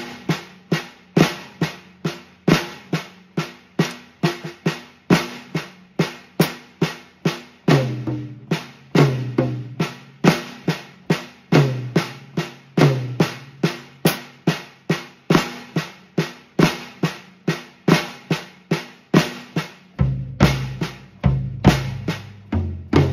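Swiss Army triplets, the flam-accented triplet rudiment, played on a drum kit at a steady moderate tempo, mostly on the snare, with deeper drum strokes in the middle and bass drum thuds joining in over the last few seconds.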